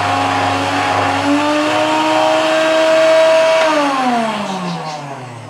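Electric countertop blender motor running on a raw egg, its pitch stepping up a little over a second in and holding steady, then falling away steadily over the last couple of seconds as the motor winds down.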